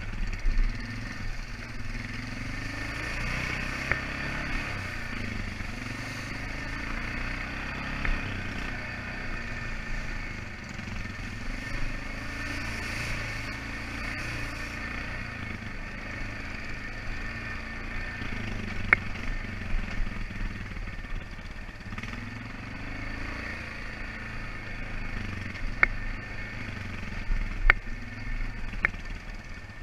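ATV engine running under way, its pitch rising and falling with the throttle, with a few sharp knocks now and then.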